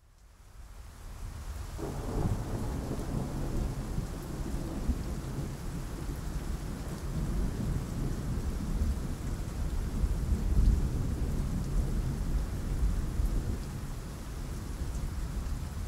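Rain with low rumbling thunder, fading in over the first couple of seconds and swelling about two-thirds of the way through.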